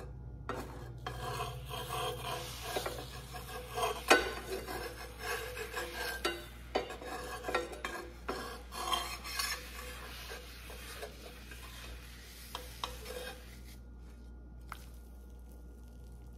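A slotted spatula scraping and sliding across the nonstick surface of a Ninja Foodi Neverstick fry pan, working under a frying egg and turning it over, with a sharp knock against the pan about four seconds in. The scraping stops about three seconds before the end, and a low steady hum runs underneath.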